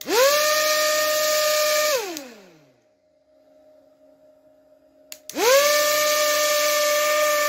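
Small high-speed drone-type DC motor spinning a plastic propeller: switched on with a click, it whines up to speed with a rush of air, runs about two seconds, then winds down in pitch when switched off. About five seconds in it is clicked on again and spins back up to a steady whine.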